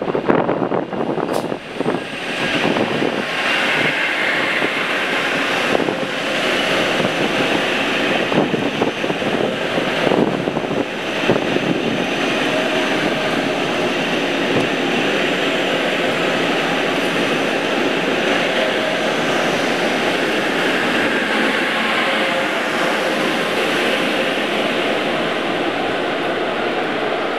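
ICE-T electric tilting train rolling slowly past: a steady rush of wheels and running gear on the rails, with a faint steady whine from its traction equipment. A few sharp knocks in the first couple of seconds as the wheels run over the track.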